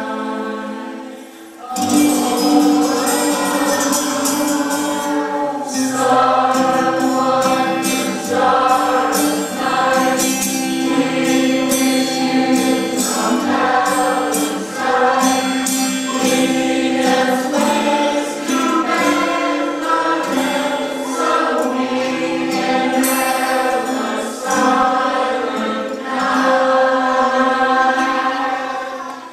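A choir singing a song over an instrumental accompaniment, with crisp percussion strokes keeping the beat.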